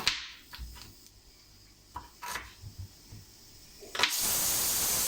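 A few light kitchen knocks and clatters, then about four seconds in a pressure cooker whistle goes off: a sudden, loud, steady hiss of escaping steam.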